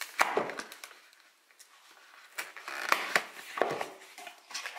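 Hands handling a large cardboard eyeshadow palette box: scraping, rustling and light knocks of the cardboard, in two bursts with a quieter pause between.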